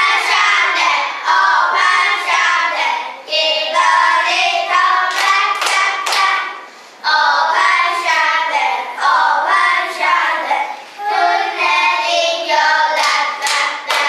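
A small group of children singing an English action song together in unison, in sung phrases with short breaks, with a few hand claps.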